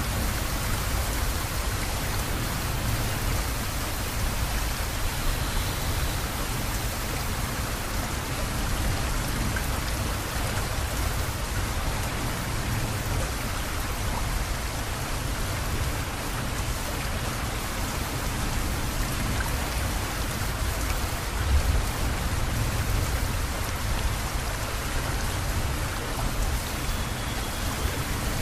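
Steady outdoor noise: a dense, even hiss over a low rumble that continues without a break.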